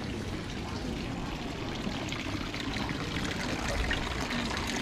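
Water running and trickling steadily, with many small drips ticking over it.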